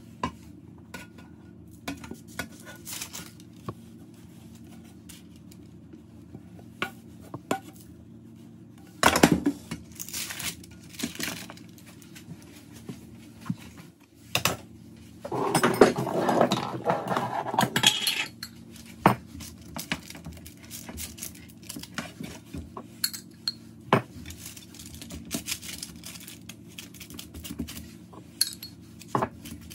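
A metal spoon and spatula clinking and scraping against a frying pan and a metal baking tray as a thick sweet mixture is scooped out and spread flat, with a busier run of scraping and knocks about halfway through. A low steady hum runs underneath.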